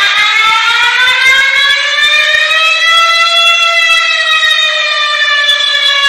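Loud emergency-alert siren: one unbroken tone that slowly rises in pitch for about three and a half seconds, then sinks back down.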